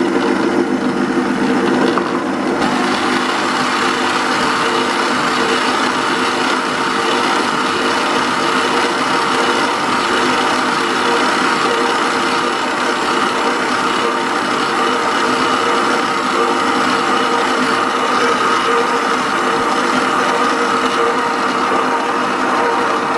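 Electric dough mixer's motor running steadily while its dough hook kneads a semolina and flour bread dough in a stainless steel bowl, a continuous even hum.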